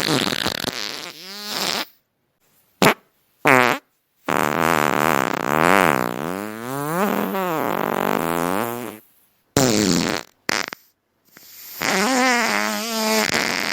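A string of fart sounds one after another with short silent gaps: brief pops and longer, wavering ones whose pitch slides up and down, the longest lasting about five seconds in the middle.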